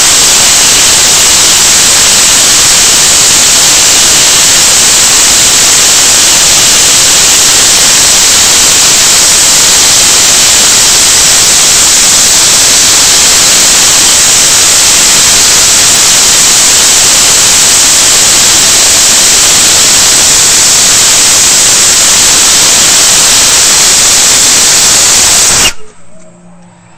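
Hydrogen-peroxide rocket belt (jet pack) firing at full thrust, a loud, steady hiss from right at the belt, which cuts off suddenly near the end when the thrust is shut down on landing.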